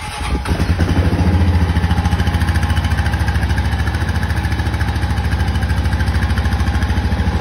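Honda Foreman Rubicon 500 ATV's single-cylinder four-stroke engine idling steadily with even exhaust pulses, settling in over the first second. Its muffler's loose internal baffle has been welded back in, so it runs without the exhaust rattle.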